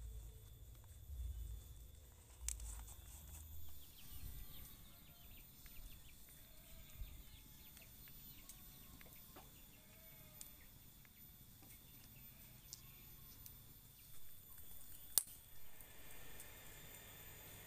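Faint rural outdoor ambience with birds and insects calling. Low rumbles in the first few seconds and a few scattered clicks, the loudest a single sharp click about fifteen seconds in.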